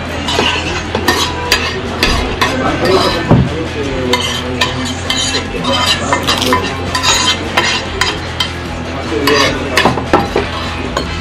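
A metal fork scraping and clinking against a plate as leftover burrito filling is pushed off it, making a busy run of short clicks and scrapes.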